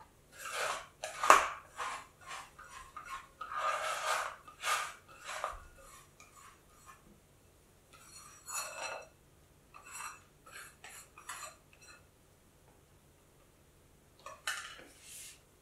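Leftover bread dough being scraped out of a glass mixing bowl, with rubs and light knocks against the glass. There is a dense run of scrapes in the first six seconds, then shorter bursts later, some with a brief glassy ring.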